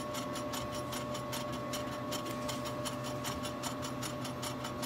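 Blood bank cell-washing centrifuge running at the start of its spin cycle, with a steady whine and hum and a rapid, even ticking of about six clicks a second. The centrifuge is a little loud, which the technologist thinks means it needs service.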